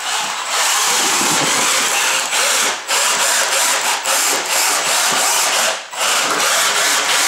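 Featherweight combat robot's geared electric drive motors running as it drives on a tiled floor: a loud, steady whirring noise broken by about four short pauses as the drive stops and starts.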